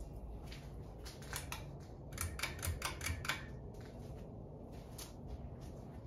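Ceiling fan running with a low steady hum, and a quick run of sharp clicks about two seconds in as the light kit's pull chain is pulled and its switch turns the lights off, with a few lighter clicks before and after.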